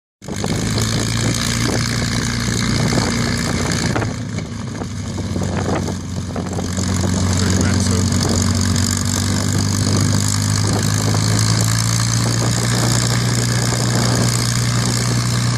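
A P-51D Mustang's Packard Merlin V-12 engine running at low power as the fighter taxis, a loud steady deep drone. It eases off briefly between about four and six seconds in, then comes back up slightly stronger.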